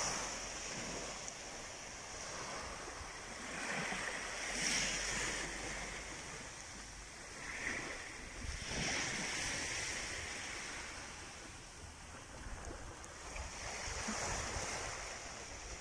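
Small waves breaking and washing up a sandy beach, the wash swelling and fading about every four to five seconds.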